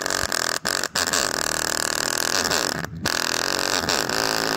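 Small full-range speaker driver from an Omaker M4, overdriven by an amplifier at full volume, blaring bass-heavy audio as a harsh, distorted buzz with sliding pitches and a few brief dropouts. The driver is being pushed past its limit: its voice coil is overheating and taking damage.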